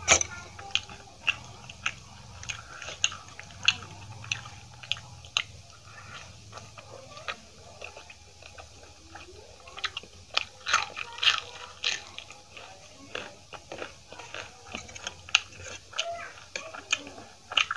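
Close-miked chewing of aloo paratha, a flatbread stuffed with spiced potato, with many short, sharp, wet mouth clicks and smacks throughout.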